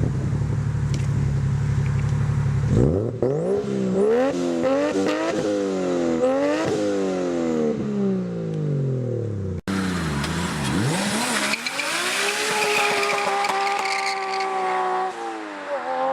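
Turbocharged BMW E30's engine running: a low idle, then repeated rev blips rising and falling, sliding down to low revs. After a cut it revs up, holds high for a few seconds and drops away near the end.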